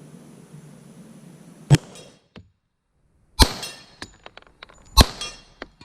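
Three 10mm handgun shots about a second and a half apart. Each is followed by the ringing clang of a hit on a steel plate, with small metallic ticks between the shots.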